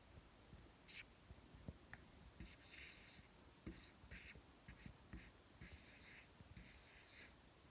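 Faint felt tip of a dry-erase marker stroking across a whiteboard, a run of short scratchy strokes as figures are written.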